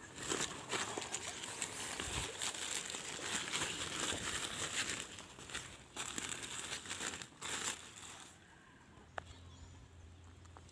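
Dense crinkling, rustling noise full of quick crackles for about eight seconds, then it dies away, leaving a faint low hum.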